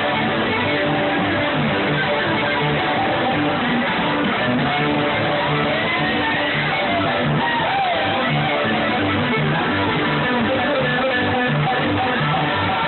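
Live string band playing an instrumental passage: strummed guitar, plucked bass notes about twice a second, and a sliding melody line above. The highs are cut off, as in a phone recording.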